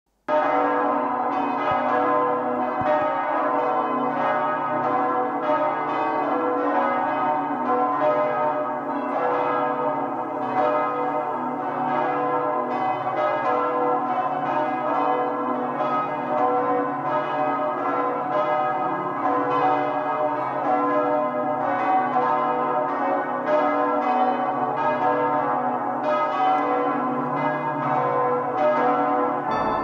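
A peal of church bells, struck in a steady rhythm of about two strikes a second, with the tones overlapping and ringing on.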